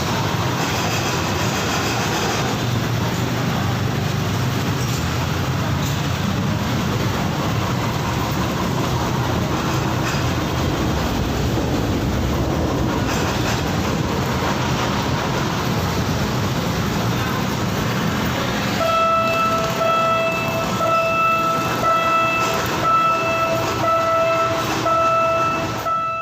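A train passing with a steady, heavy rumble. Its horn starts sounding about two-thirds of the way in and gives a run of repeated blasts on one pitch.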